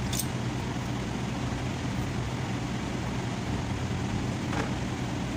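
Steady low machine hum of a workshop, with a faint metallic click about four and a half seconds in as a long steel tool goes down into the wheel hub.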